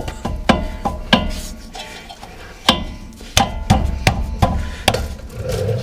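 Sharp metal knocks and clinks, about nine of them spread irregularly, as a disc brake caliper is worked and knocked into place in its tight-fitting bracket.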